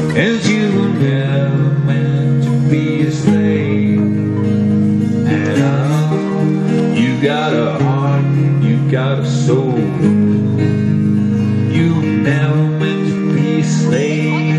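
Acoustic guitar music: strummed chords over low notes that change every couple of seconds, with bending, gliding higher notes now and then.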